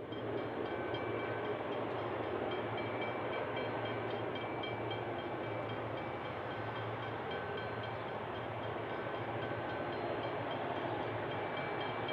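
Diesel locomotives of an approaching freight train, heard at a distance: a steady low engine drone, with a faint high ringing repeating about four times a second.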